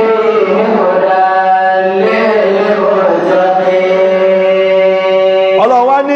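A man's voice chanting Quranic Arabic in the drawn-out, melodic style of tajwid recitation, holding long steady notes that step to a new pitch every second or so. Near the end the voice breaks into quicker, gliding syllables.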